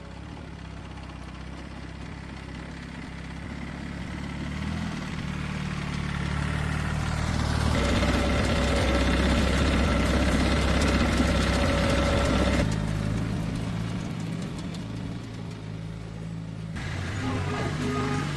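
A car engine running steadily, growing louder over the first eight seconds or so. The sound changes abruptly twice in the second half.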